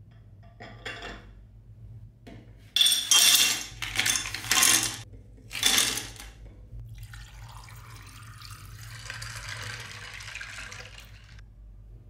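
Liquid splashing and pouring: about four loud splashes, then a softer steady stream that stops shortly before the end.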